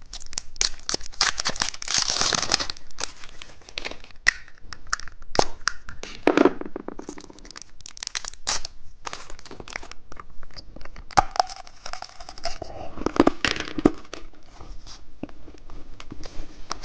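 Plastic candy packaging crinkling and tearing open, in a long run of rustles and sharp clicks with a few brief squeaks.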